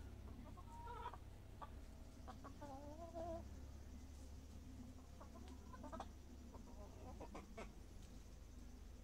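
Brahma chickens clucking softly in short scattered calls, with one longer wavering call about three seconds in and a quick run of sharper clucks later on.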